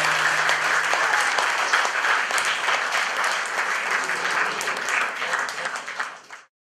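Audience applauding, many hands clapping at once, fading away and cutting off near the end.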